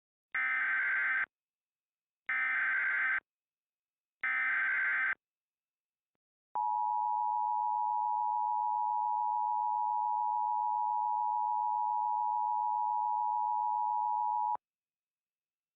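Emergency Alert System header: three short bursts of warbling SAME data tones, each just under a second and about two seconds apart, followed by the steady two-tone EAS attention signal for about eight seconds, cutting off sharply. It marks the start of an alert, with the voice message to follow.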